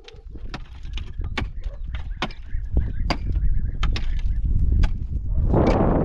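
Sharp knocks or clicks at irregular spacing, about two a second, over a low rumble that grows louder. Near the end a loud burst of noise joins in.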